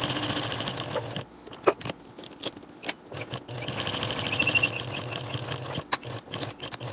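Electric sewing machine stitching, topstitching fabric alongside a metal zipper. It runs for about a second, stops while a few clicks are heard, and runs again from about three and a half seconds in until near the end.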